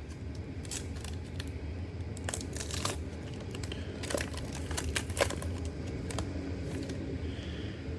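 Football trading cards being handled and flipped through by hand: soft crinkling and rustling with scattered light clicks of card on card.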